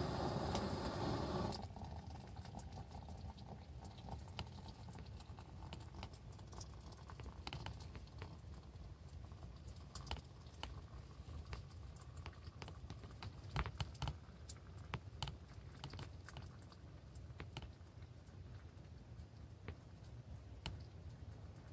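Small gas canister stove burner hissing, shut off about a second and a half in. After that, scattered light clicks and knocks from a metal pot and mug being handled.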